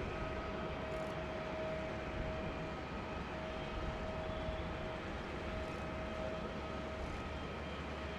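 Jet aircraft engines running at low power on the airfield: a steady rumble with a held whine.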